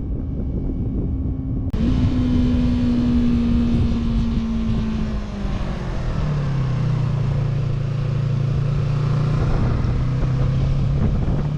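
Yamaha YZF-R3's 321cc parallel-twin engine running under way, with wind rushing past the microphone. The engine note sags slowly, then drops to a lower steady note about halfway through.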